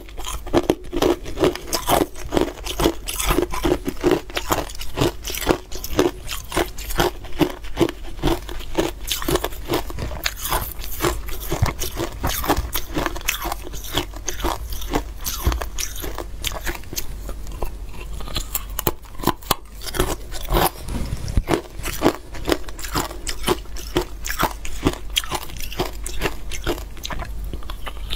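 A person crunching and chewing ice coated in matcha powder, close to a clip-on microphone: a dense run of sharp cracks and crunches as the ice breaks between the teeth.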